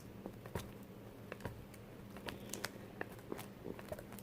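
Plastic spoon stirring and scraping slime in a pot as the glue mixture is being activated with boric-acid water: faint, irregular clicks and taps of the spoon against the pot, over a faint steady low hum.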